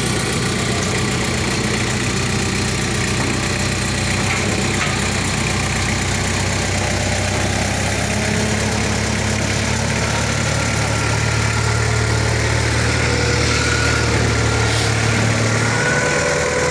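Forklift engine running steadily at low revs, its hum growing stronger in the second half while the load is raised, then easing back near the end.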